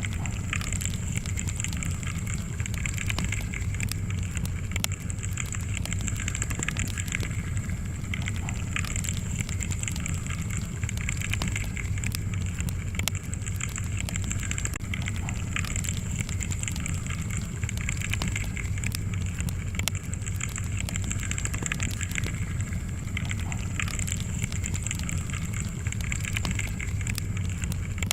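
Wood log fire crackling, with a constant stream of small sharp pops over a steady low rumble.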